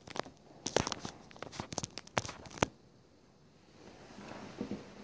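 Small 1:43 die-cast model car pushed by hand across a wooden tabletop, its stiff wheels dragging: a quick string of light clicks and scrapes over about two and a half seconds, then a softer rustle near the end.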